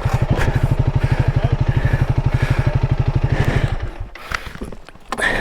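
Honda CRF300L Rally's single-cylinder engine running with a steady, fast pulsing beat, then stopping about three and a half seconds in.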